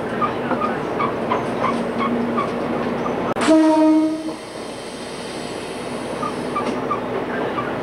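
Train running, heard from the front of the car, with repeated rail-joint clicks; about three and a half seconds in, the horn sounds one steady blast of about a second.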